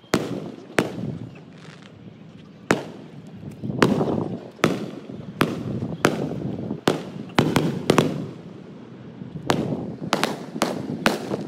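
Aerial fireworks shells bursting: a string of sharp bangs, each trailing off in a rumble, coming faster near the end.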